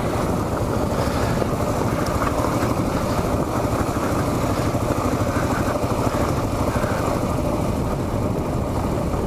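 Kawasaki KLR650's single-cylinder engine running steadily.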